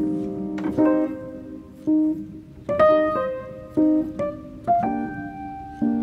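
Background piano music: single notes and short chords struck at an unhurried pace, each ringing and fading before the next.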